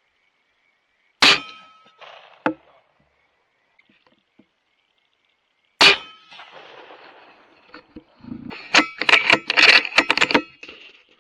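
Two rifle shots about four and a half seconds apart, each trailing off over the following second. A short sharp click comes a second after the first shot, and a quick run of metallic clanks and knocks comes near the end.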